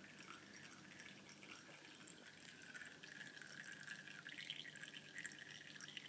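Brewed coffee trickling and dripping faintly from a cloth sock filter into a cup.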